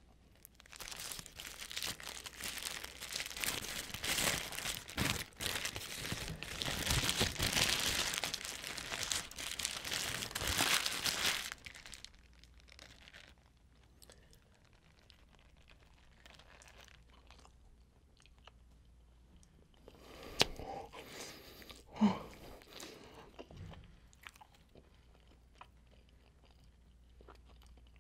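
A McDonald's cheeseburger's paper wrapper crinkling loudly as it is unwrapped, for about the first eleven seconds. Then quieter biting and chewing of the cheeseburger, with two short, louder sounds about twenty and twenty-two seconds in.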